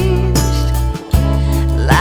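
Background music: a song with a wavering, melismatic vocal line over steady bass notes and a beat.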